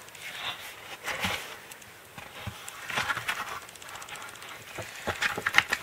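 Paper and card rustling in several short brushes as a card-covered postcard book is opened and its pages are handled.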